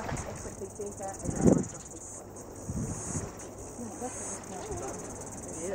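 Steady high-pitched trilling of an insect chorus, with faint distant voices and a brief low thump about a second and a half in.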